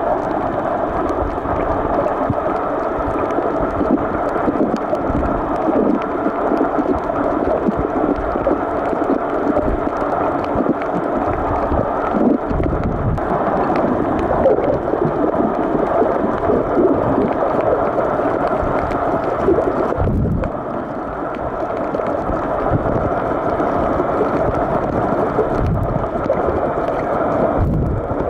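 Muffled underwater noise picked up by a camera held below the surface: a steady dull rush with gurgling, broken by a few deep thumps.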